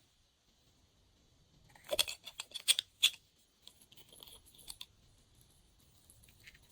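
Glossy slime handled by hand: a quick run of sharp sticky clicks and pops about two seconds in, then softer scattered crackles.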